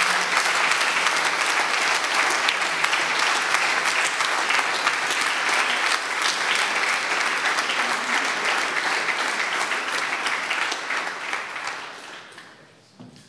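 Audience applause: a room full of people clapping steadily at the end of a speech, dying away over the last two seconds.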